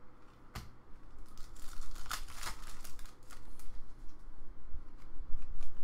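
Trading cards being handled and flipped through by hand: a sharp snap of card stock about half a second in, then a run of sliding and rustling scrapes, and a few light flicks near the end.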